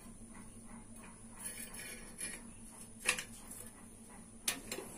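A few light metallic taps and clicks from metal rods and a snake-handling stick knocking against each other, the wall and the floor. The sharpest tap comes about three seconds in, and another near the end, over a faint steady hum.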